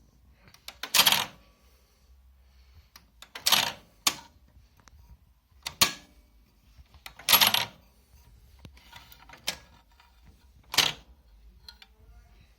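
Sharp metallic clacks and clatter, about seven at irregular intervals, as of hard objects being handled and set down.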